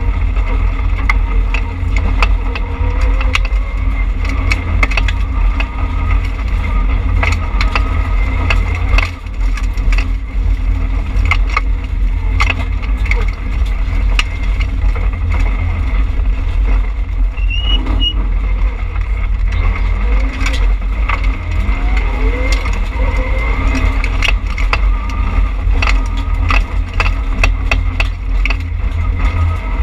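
Rally car's engine heard from inside the stripped, roll-caged cabin, running hard with heavy low rumble and revs rising and falling through the gears, with many sharp clicks and knocks from the road and bodyshell.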